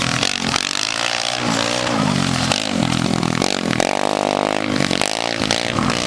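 Formula Student race car's engine revving hard, the pitch climbing and dropping again and again as the car accelerates, lifts off and turns around a cone course.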